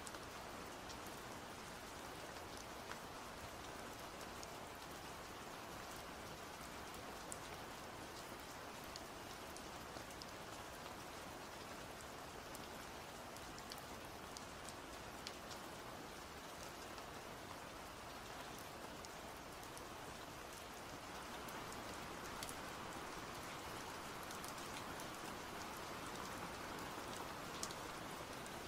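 Steady rain falling, an even hiss scattered with sharp ticks of single drops striking; it grows slightly heavier about three-quarters of the way through.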